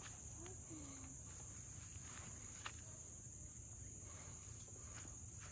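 Insects droning steadily in one continuous high-pitched band, with a faint click about two and a half seconds in.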